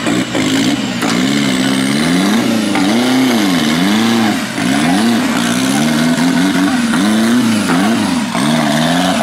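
Off-road buggy engine revving hard, its pitch rising and falling over and over as the throttle is worked.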